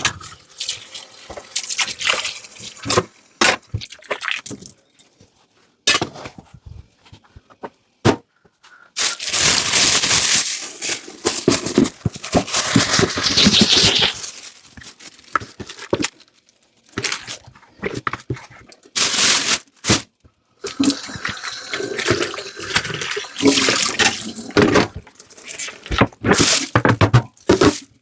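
Dishes being washed by hand at a sink: tap water running in spells, with clinks and knocks of dishes and utensils in between. The sound cuts off abruptly into silence several times.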